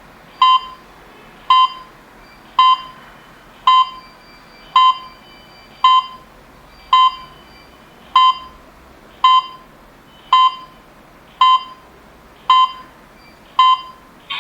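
Alarm system control panel beeping: thirteen short, identical electronic beeps, evenly spaced about once a second.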